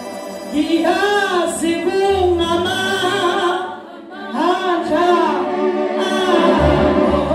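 A woman singing unaccompanied into a microphone, her voice carried through the loudspeakers, in sung phrases with a short break about four seconds in.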